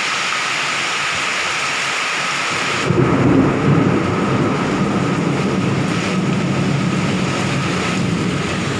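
Strong wind with rain: a steady hiss, then about three seconds in a deep rumbling gust takes over, loudest for a second or so before settling into a continuous rumble.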